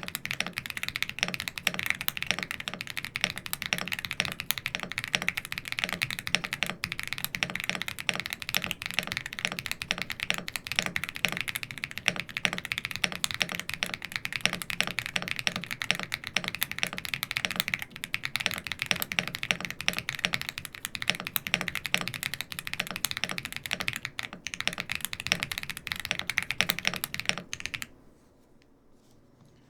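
Bridge75 mechanical keyboard with Haimu Navy Jade tactile switches and all its foams installed, typed on fast and continuously: a dense run of key clacks that stops near the end.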